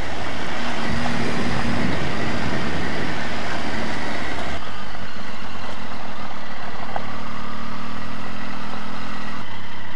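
Motorcycle engine running on the road under heavy wind noise on the helmet microphone. The sound is steady, and the hiss thins out about halfway through.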